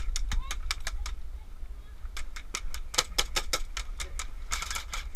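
Airsoft gunfire: sharp clicking shots in irregular strings, a few early, a run of them in the middle and a dense burst near the end, over a steady low rumble.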